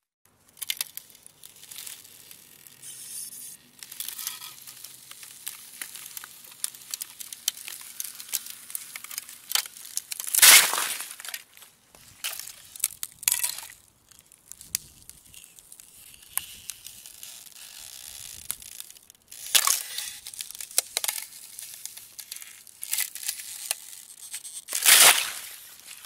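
Ice cracking slowly: a continuous run of small crackles and creaks, broken by three louder cracks, about ten seconds in, about twenty seconds in, and near the end.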